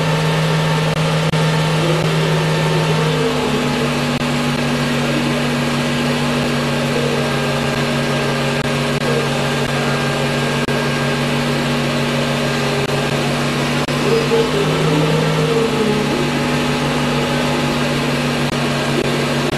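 Film projector running: a steady motor hum and whir, its pitch dipping slightly about three seconds in.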